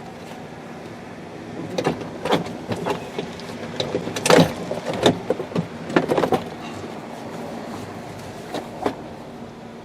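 Chevy pickup interior door trim panel being pressed and knocked onto the door so its plastic retaining clips snap in. A run of sharp knocks and clicks starts about two seconds in and is loudest near the middle, then two more knocks come near the end.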